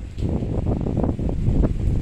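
Strong storm wind gusting across the microphone: a low, buffeting rumble that gets louder shortly after the start.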